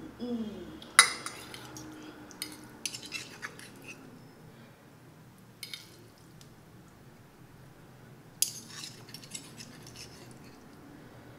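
Metal fork and spoon clinking and scraping against a china plate while twirling noodles. There is a sharp clink about a second in, then scattered clusters of lighter clinks and scrapes.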